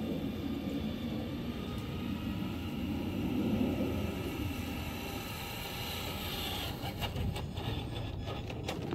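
Electric RC truck (Traxxas Ultimate RC Hauler) driving as it approaches: a low rumble of tyres over the ground under a faint steady whine of motor and gears. A few short clicks come near the end as it gets close.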